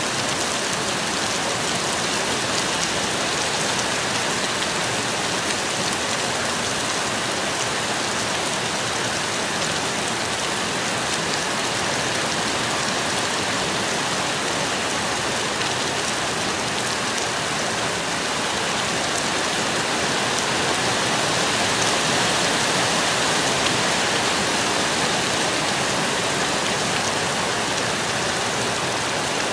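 Steady heavy rain pouring down during a thunderstorm, an unbroken hiss that swells slightly about two-thirds of the way through.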